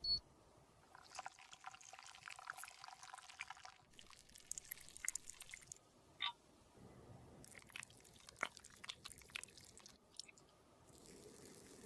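Faint sticky clicks and crackles in short runs as makeup paste is worked and mixed, with one sharper click about six seconds in.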